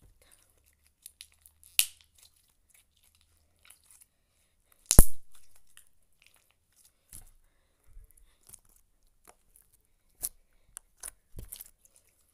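Glitter slime being handled, with scattered sharp pops and clicks and one much louder pop about five seconds in.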